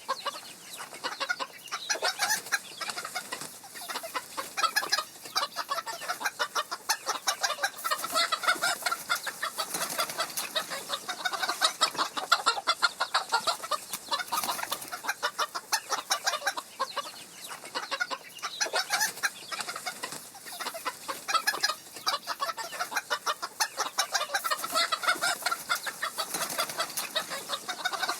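A flock of chickens clucking without a break, many short calls overlapping one another.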